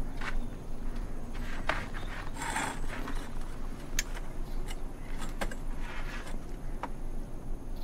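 Light knocks and clicks of someone settling at a wooden table, with two brief scraping rustles, about two and a half and six seconds in, over a steady low hum.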